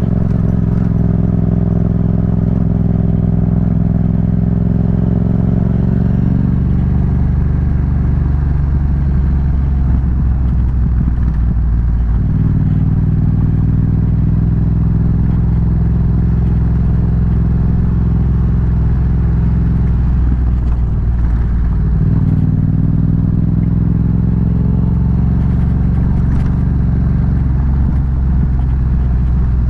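Yamaha MT-07's 689 cc parallel-twin engine with an Akrapovic exhaust, running steadily under way on a dirt road. Its note shifts a few times, about a third of the way in and again about two-thirds in.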